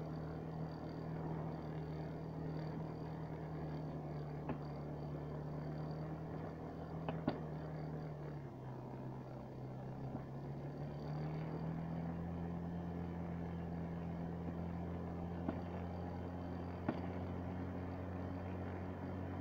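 Snowmobile engine running steadily while riding over packed snow. It eases off about eight seconds in and picks back up a few seconds later, with a few short knocks from the ride.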